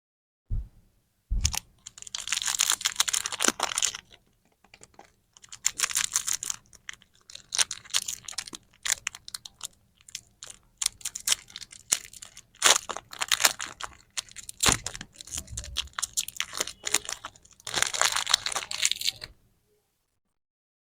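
Candy packaging being handled and unwrapped close to the microphone: crinkling and tearing wrappers in bursts with short pauses, after two soft knocks near the start.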